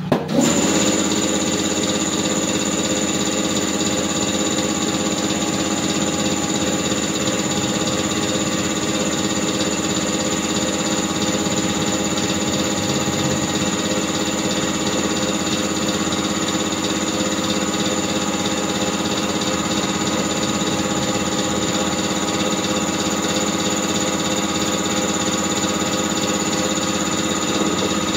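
Compressed-air equipment on the tire-shop air line running steadily: an even mechanical whir with a high whine over a fast rattle, starting abruptly.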